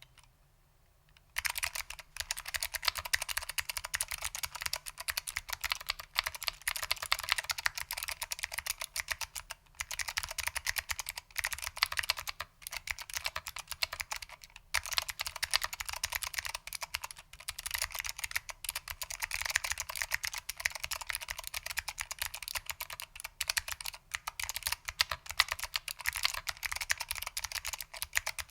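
Fast continuous typing on a mechanical keyboard with clicky SKCM Blue Alps switches, foam-damped, under ABS doubleshot keycaps. The keystrokes start about a second in and run with a few brief pauses.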